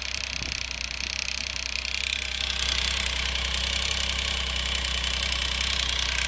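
Triumph Tiger 800 XCx's three-cylinder engine idling steadily, not fully cold, on one of its first starts. Over it runs a high-pitched sound that grows louder about two and a half seconds in: the strange sound the owner is asking about.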